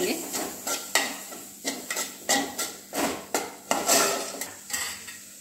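Metal spoon scraping and clinking against the sides and bottom of a metal pot while stirring chopped tomatoes into a thick onion masala, a couple of strokes a second, stopping shortly before the end.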